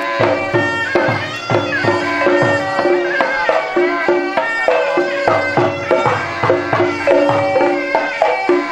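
Thai bua loi funeral ensemble playing: the nasal, reedy melody of a pi chawa oboe over a steady pattern of klong malayu drum strokes.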